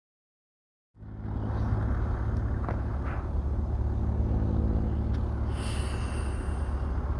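Yamaha RX King motorcycle with a two-stroke RX-Z engine running steadily at idle through its exhaust, a constant low rumble that comes in about a second in.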